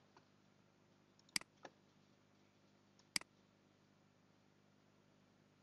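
Two sharp computer mouse clicks about two seconds apart, each paired with a fainter click, over near-silent room tone.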